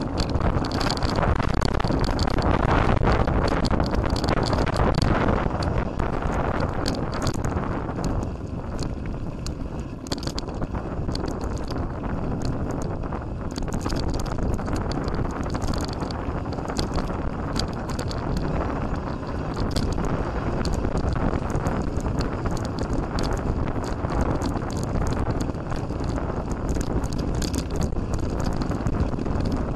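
Mountain bike being ridden over a rough dirt trail: wind buffeting the microphone over continuous tyre and frame rattle with frequent knocks. It is louder for the first five or six seconds.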